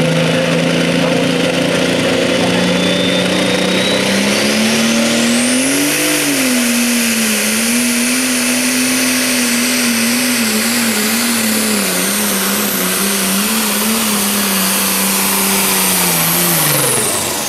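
Case IH Magnum 7210 Pro Stock pulling tractor's turbocharged diesel engine under full load pulling a weight sled. The engine note climbs about four seconds in as it launches, and a high turbo whine rises and holds while the engine pitch wavers through the pull. Near the end the revs and the whine drop away as the tractor throttles back at the end of the run.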